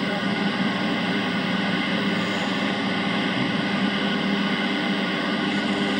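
Yaesu FRG-8800 shortwave receiver playing band noise through its loudspeaker: a steady static hiss with several faint, steady whistles over it.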